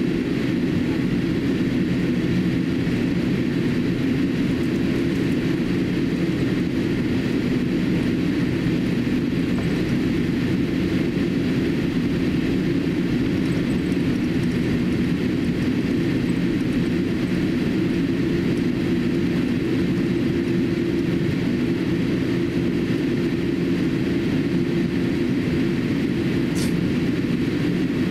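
Steady cabin noise inside a Boeing 787-8 airliner taxiing on the ground: an even low hum from the engines at taxi power, with a faint tick near the end.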